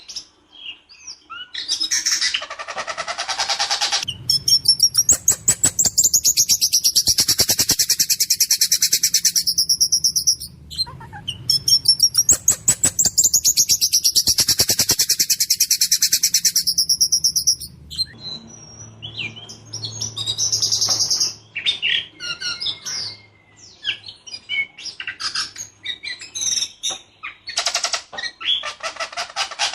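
Whistling thrush (ciung batu) singing in full voice: two long, harsh, rapid-fire rattling trills of several seconds each, then a varied series of short calls and whistles.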